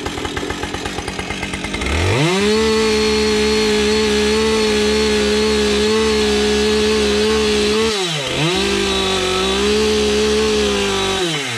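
Two-stroke chainsaw idling, then revved up about two seconds in and held at a steady high speed. It dips briefly in speed about eight seconds in, picks up again, and drops off near the end.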